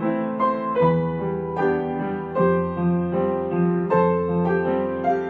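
Slow, gentle piano music: a melody of sustained notes, a new note about every half second.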